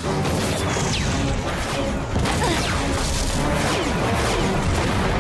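Cartoon action sound effects: repeated crashes and explosion blasts from slugs hitting a train, with whooshes, over background music.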